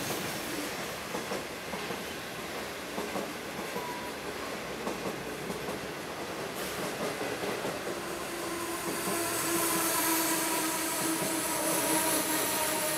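Type 25Z passenger coaches of a through train rolling past at speed, their wheels running noisily over the rails. A steady squealing tone joins the rumble about eight seconds in.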